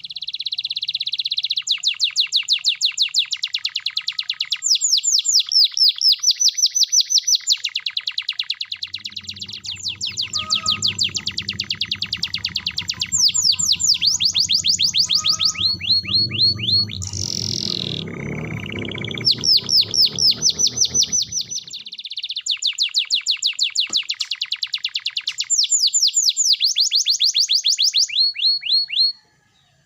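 Domestic canary singing a long, loud song of fast repeated trills, switching from one trill type to another every second or two, with a descending whistle about 17 seconds in. A low rumble runs under the song through the middle, and the song cuts off abruptly near the end.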